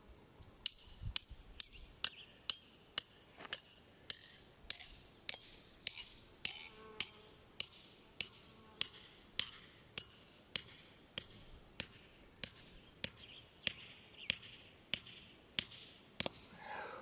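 A 3 lb hand sledge striking the head of a 12-inch steel tent stake with sharp metal-on-metal clanks, a little under two blows a second. The blows drive the stake into hard, compact dirt.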